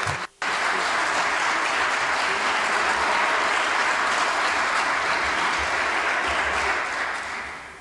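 Applause from many members of parliament clapping at the close of a speech. It drops out for a split second just after it starts, then runs on evenly and fades out near the end.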